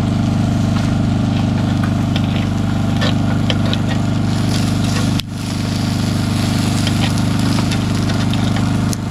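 A small engine running steadily, a low even drone that dips briefly about five seconds in, with a few faint clicks over it.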